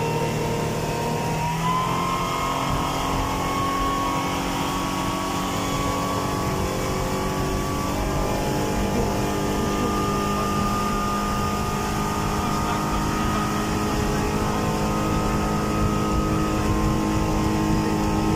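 Honda 225 V6 four-stroke outboard running at high revs, its steady whine stepping up in pitch about two seconds in, over continuous water and wind noise from the hull at speed.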